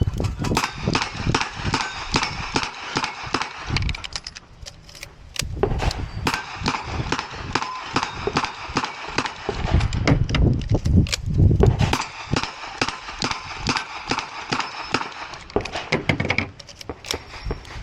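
Smith & Wesson 929 9mm revolver fired in quick strings at steel targets: a long run of sharp, loud shots, each hit followed by the ringing of a steel plate.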